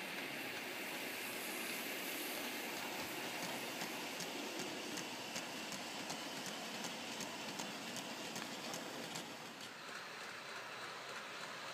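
Model railway train running past: the motor of an OO-gauge diesel locomotive hums while the wheels of its Heljan Dogfish ballast wagons click over the rail joints about three times a second, the clicking fading out near the end.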